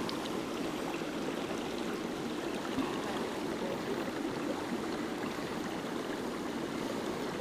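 Small mountain stream running over rocks: a steady rush of flowing water.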